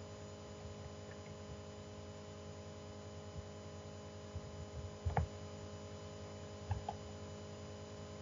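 Steady electrical mains hum with several overtones, picked up in the recording setup, with a couple of faint soft knocks about five and seven seconds in.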